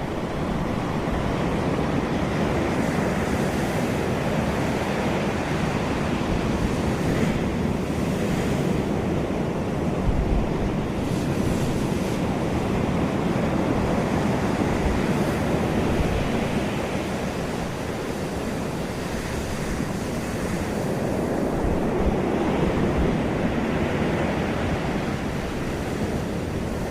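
Sea surf breaking and washing on the shore, swelling and easing every few seconds, with wind buffeting the microphone.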